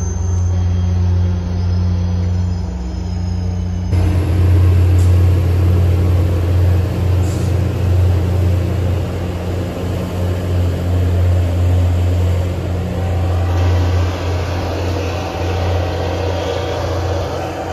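MBTA commuter rail diesel locomotive running with a steady low engine drone as the train moves away, with a rush of rail and wheel noise that grows louder about four seconds in.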